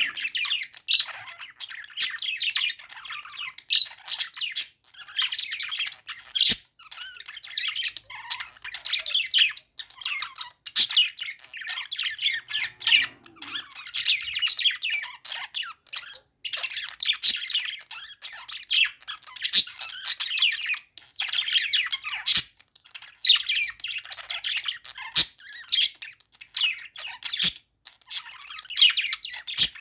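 Budgerigars chattering and warbling without a break, with sharp, louder chirps and squawks cutting through every second or two.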